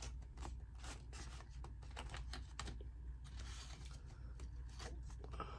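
Aluminium foil crinkling and clicking in irregular little crackles as tacos lying in it are handled, over a low steady hum.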